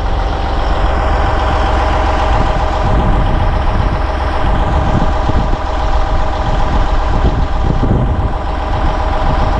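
Heavy diesel engine idling steadily, with a constant low rumble and a steady whine over it.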